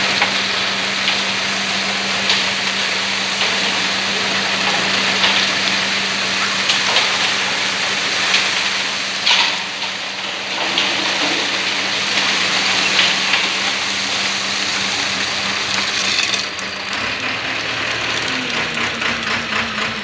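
Aimix AS-3.5 self-loading concrete mixer's diesel engine running steadily while wet concrete pours out of the drum and slides down the discharge chute with a steady rushing, spattering noise. The rush thins out about three-quarters of the way through.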